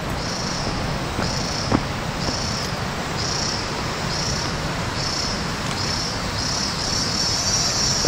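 Cicada calling: a high-pitched buzz in pulses about once a second, coming quicker toward the end and running together into one continuous buzz.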